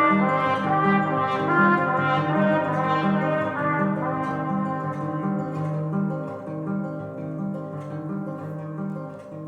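Instrumental passage of a song: a trumpet plays over a low line repeating about twice a second, and the music grows quieter over the last few seconds.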